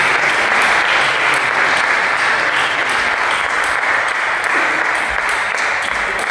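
Spectators clapping: a steady spell of applause that tails off near the end.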